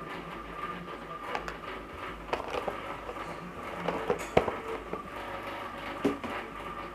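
A spoon knocking and clinking against a cooking pan in scattered strokes as spice powder is added to chicken and stirred in, the loudest knocks a little past halfway and near the end. A steady faint hum runs underneath.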